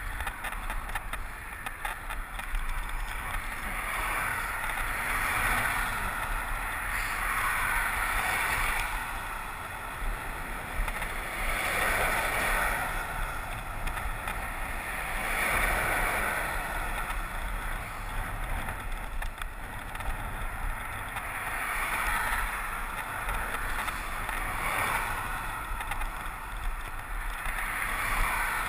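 Steady rush of wind and road noise from a moving bicycle, swelling into a whoosh every few seconds as traffic passes on the road alongside.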